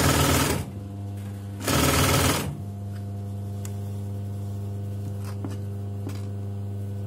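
Electric domestic sewing machine stitching in two short bursts, one right at the start and another about two seconds in, sewing elastic into a gathered skirt waist while the fabric is held stretched. A steady low hum follows, with a few faint clicks.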